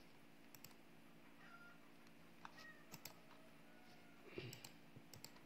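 Near silence with a low steady hum, broken by a few faint computer mouse clicks. About four and a half seconds in there is a brief faint call-like sound.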